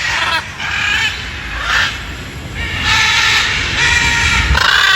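Parrots in an aviary squawking: a series of harsh, raspy calls one after another, the longest about three seconds in.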